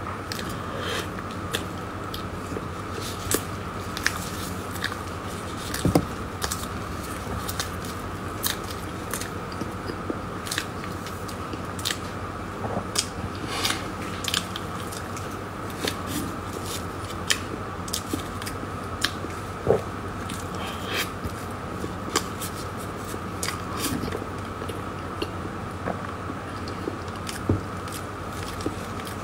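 Close-up eating of a soft filled crepe roll: moist bites and chewing with frequent small mouth clicks and lip smacks, over a steady faint hum.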